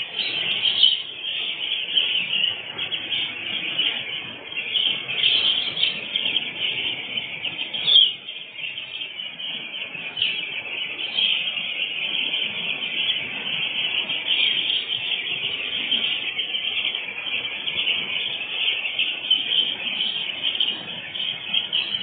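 A flock of hundreds of two-week-old chicks peeping continuously, heard through a security camera's microphone, with one louder peep about eight seconds in.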